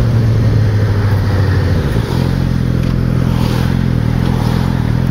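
Suzuki GSX-R600 inline-four engine running at low speed under way, with noise from the ride around it; about two seconds in the engine note changes.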